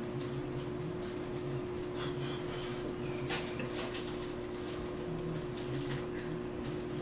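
A steady low hum runs under scattered soft clicks and ticks.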